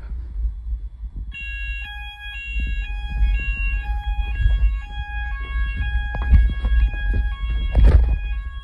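Fire alarm sounders go off about a second in with a repeating on-off alarm tone, set off by test smoke in a ceiling smoke detector. The phone is being carried, so rumbling handling noise runs underneath, with a knock near the end.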